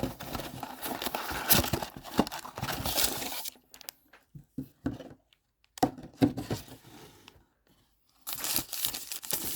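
Packaging of a trading card box being torn open, with crinkling. The tearing and crinkling is dense for the first three seconds or so, gives way to a few scattered handling clicks and knocks, then starts again near the end.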